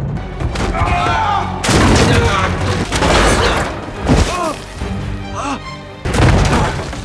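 Dramatic film score with several heavy thuds and booms, and a man's short cries and grunts, as in a struggle and a fall into snow.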